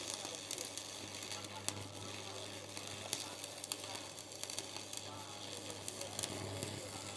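Electric arc welding on the steel of a mini tractor's cage wheel: a steady crackling sizzle with sharp pops, over the low hum of a transformer arc welder.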